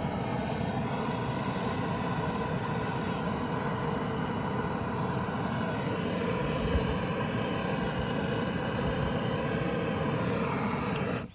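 Steady machine running noise with several held tones, cut off suddenly near the end.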